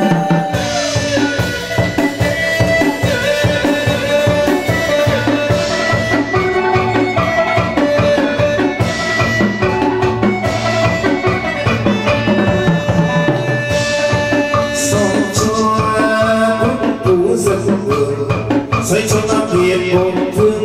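Vietnamese chầu văn ritual music for a hầu đồng ceremony: a steady drum beat under a traditional instrumental melody.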